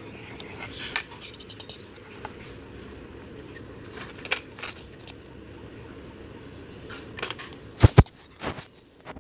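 Kitchen knife clicking and scraping against a wooden board as it cuts rolled dough into strips. Scattered light clicks and two sharp knocks close together near the end sound over a steady low hum.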